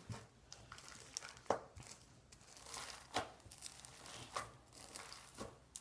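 Homemade borax-and-glue slime being kneaded by hand, with irregular wet squelches and sticky pops and clicks as it is pulled and pressed.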